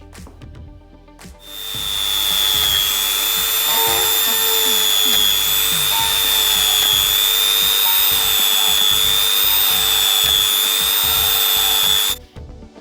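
Makute DG002 mini electric die grinder starts about a second and a half in, spins up, and runs with a steady high-pitched whine for about ten seconds, then cuts off suddenly.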